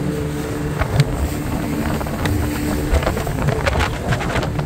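Water taxi's motorboat engine running under wind buffeting the microphone, with a steady hum that fades about three seconds in and a few sharp knocks.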